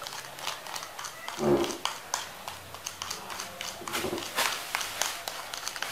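Irregular light clicks and taps of a plastic toy knife and toy fruit being handled and cut, the sharpest about four and a half and five seconds in. A child's brief voice sounds twice.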